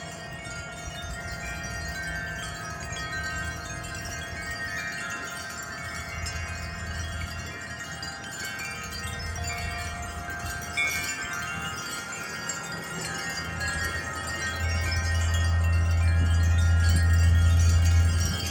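Several wind chimes, glass ones among them, ringing in the wind with overlapping notes. Low wind rumble on the microphone builds over the last few seconds as a gust picks up.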